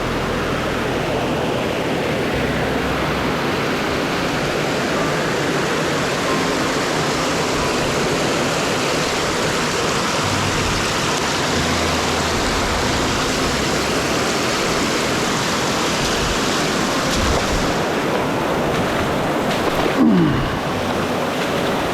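Mountain brook rushing over rocks, a steady rush of water close to the microphone. A short falling pitched sound, like a brief voice, comes about two seconds before the end.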